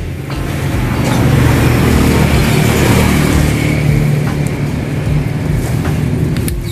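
A nearby engine running steadily, a loud low rumble that swells slightly about a second in.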